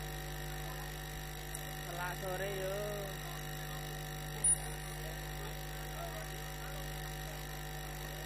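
Steady electrical mains hum from the amplified sound system. A faint voice rises briefly about two seconds in, and a short high-pitched blip comes about four and a half seconds in.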